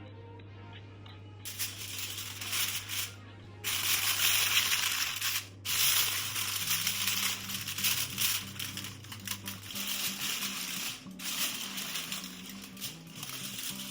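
Background music under loud rustling, scraping noise from food preparation. The noise starts about a second and a half in and runs in long stretches with a few short breaks.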